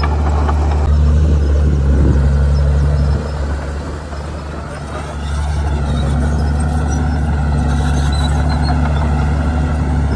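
Komatsu D51PX bulldozer's diesel engine running hard. It eases off about three seconds in and comes back up about two seconds later.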